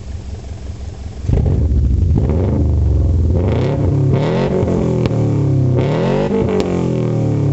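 Naturally aspirated Subaru flat-four of a 2002 Forester, breathing through an unequal-length header and a straight pipe with the rear muffler removed. It idles, then about a second in it is revved several times in quick rising-and-falling blips, with an uneven exhaust rumble.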